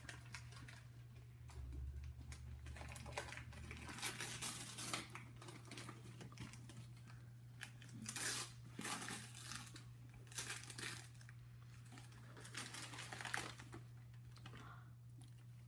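Wrapping paper and tissue paper crumpling and tearing in short, irregular rustles as a present is unwrapped by hand.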